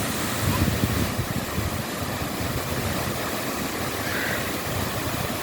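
Waterfall: the steady roar of falling water, strongest in the low range.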